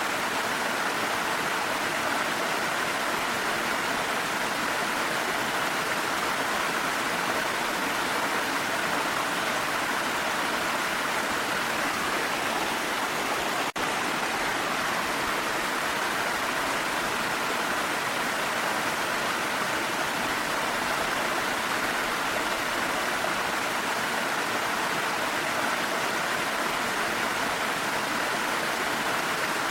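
Steady, even rush of a waterfall with falling rain, broken by one very brief dip in level about halfway through.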